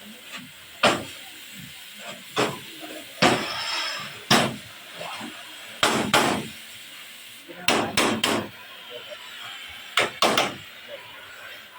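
Hammer blows on the cargo bed of an Isuzu Elf truck being repaired: about a dozen sharp, irregular strikes, some in quick pairs.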